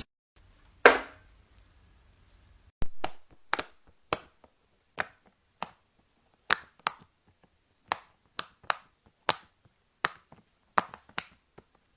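Bubbles of a silicone Pop It fidget toy being pushed through, each making a sharp pop: one about a second in, then an uneven run from about three seconds in, roughly one or two a second.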